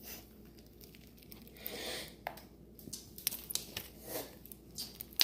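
Crunchy slime being squeezed and worked by hand: scattered crackling pops and squishes, with a brief hissing rustle about two seconds in.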